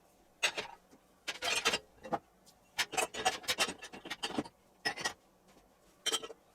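Crockery, pans and cutlery being loaded into the racks of a compact dishwasher: irregular clinks and knocks, some in quick clusters.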